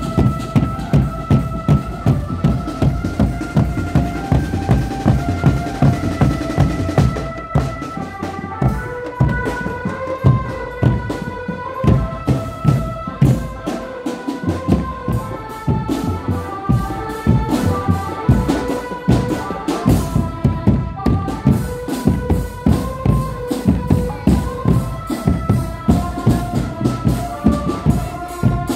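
Drum band music: a stepping melody of held notes over a steady drum and percussion beat.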